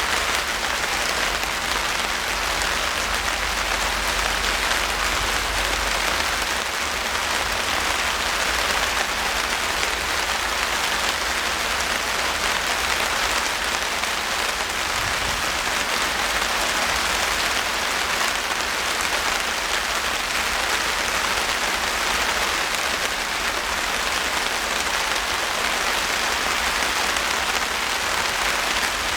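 Rain falling steadily, a dense, even hiss of countless drops with no let-up.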